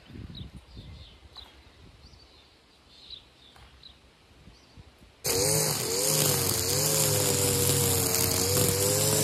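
Quiet for about five seconds apart from a few faint high chirps, then a string trimmer suddenly starts up, running at full speed and cutting long grass, its pitch wavering slightly with the load.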